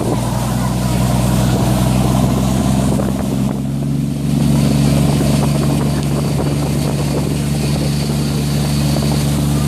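A boat's engine running steadily, a low drone with a hiss over it; it dips briefly about three and a half seconds in.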